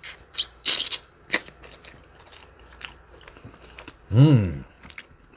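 Close-miked biting into a chicken wing: several sharp crunches in the first second and a half, then scattered small chewing clicks. About four seconds in comes a short hummed "mmm" falling in pitch.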